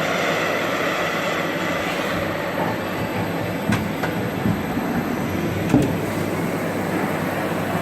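CNC lathe with live tooling machining a metal differential case: a steady mechanical cutting noise over a low hum, with a faint squeal early on and a few sharp ticks, the loudest near the end.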